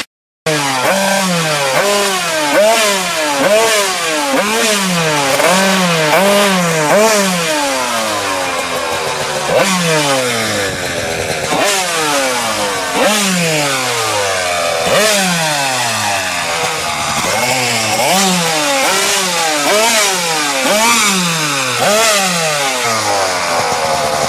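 Tuned Kawasaki KDX 200 single-cylinder two-stroke engine with an expansion-chamber exhaust, revved over and over: its pitch sweeps up and falls back about once a second.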